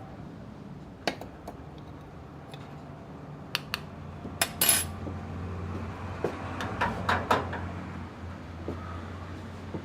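Small clinks, clicks and a brief scrape of a spoon and kitchenware as ground coffee is spooned into a drip coffee maker's filter, with a low steady hum starting about halfway.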